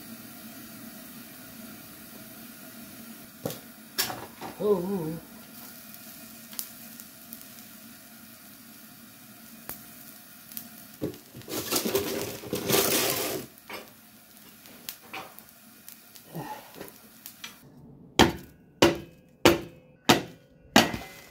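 Molten aluminium poured from a crucible into a casting mould over a steady hiss, with metal clinks and scraping from the crucible and a small ladle. Near the end come about six sharp hammer blows, roughly half a second apart, breaking the white mould away from the casting.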